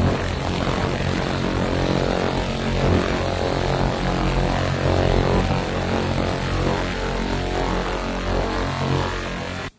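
Pulse laser rust-removal machine running while its beam cleans rust off a steel bar: a steady droning hum with a hiss. It stops abruptly near the end.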